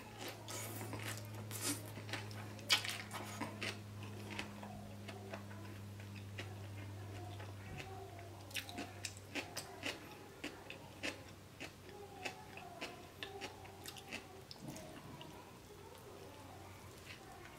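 A person biting into and chewing a bacon beef burger, with many wet smacking and crisp clicking mouth sounds. A low steady hum runs underneath and stops about eight seconds in.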